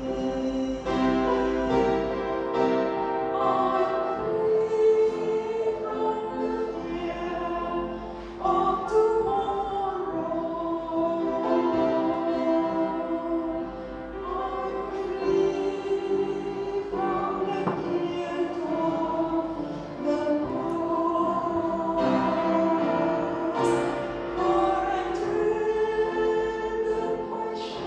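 A woman singing a gospel hymn solo into a handheld microphone, amplified through the church sound system, with long held notes.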